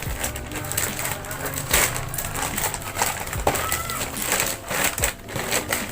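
Shipping parcel being torn open by hand: a dense, irregular run of crinkles, crackles and rips of packaging.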